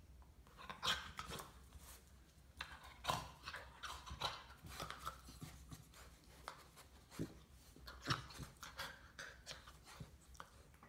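Labrador puppy shifting about on a tile floor: irregular clicks and scuffs of its claws and paws on the tiles, with sharper knocks about a second, three seconds and eight seconds in.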